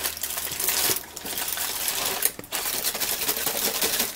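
Aluminium foil crinkling and crackling as roasted tomatillos and their juice are tipped out of it into a blender jar, with two brief pauses.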